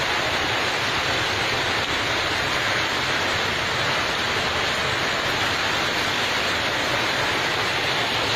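Heavy tropical rain pouring down steadily, a dense, even hiss of water that neither builds nor fades.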